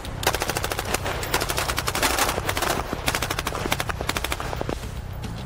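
C7 rifles (5.56 mm) firing on full automatic, a run of rapid bursts that stops near the end.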